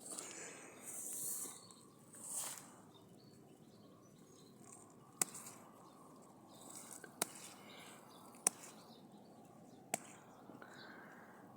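A goldfinch feeding on dandelion: soft rustling in the first few seconds, then four sharp single clicks one to two seconds apart.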